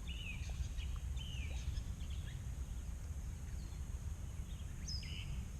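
Birds chirping and calling in short scattered notes over a steady low rumble.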